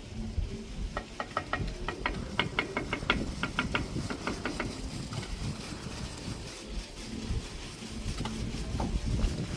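A quick run of about fifteen sharp taps or clicks, roughly five a second, between about one and four seconds in, over a steady low rumble.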